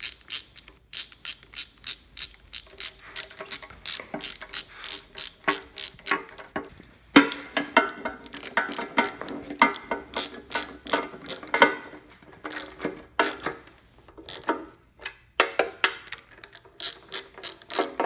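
Hand ratchet clicking in quick runs of about four or five clicks a second, with short pauses between runs, as the oil pan bolts are tightened.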